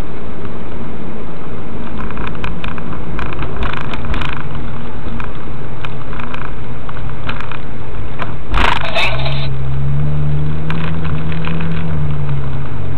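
Porsche 996-based Gemballa GT600 Evo's twin-turbo flat-six running at low speed, heard from inside the cabin with road noise and small clicks and rattles. A brief loud bump comes about two-thirds through, after which the engine settles into a steady deep drone.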